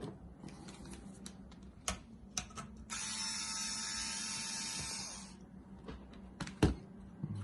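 Small electric screwdriver running steadily for about two and a half seconds from about three seconds in, turning a screw on the motherboard. Around it are light clicks and knocks of tools and computer parts being handled, the sharpest near the end.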